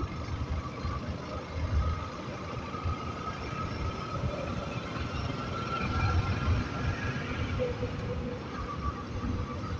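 Motorcycle with a stock exhaust being ridden on the road, its engine running under wind rumble on the onboard microphone, with light traffic around.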